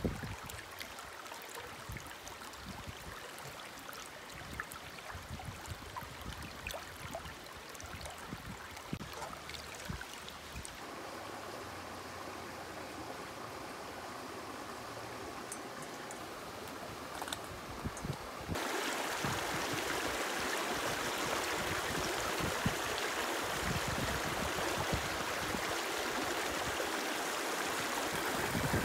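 A shallow stream running over rocks, a steady rush of water with a few faint clicks and taps of handling. About two-thirds of the way through the water becomes suddenly louder and fuller, nearer a small cascade.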